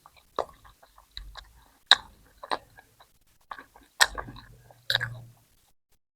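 Close-miked mouth sounds of eating okra and minced-meat curry with roti: wet chewing with a run of sharp lip smacks and clicks, the loudest about two and four seconds in, stopping about five and a half seconds in.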